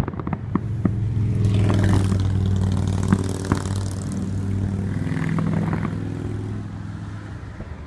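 An engine hums steadily, grows louder about two seconds in and fades away toward the end, as a passing vehicle would. Several sharp firework bangs and crackles sound over it.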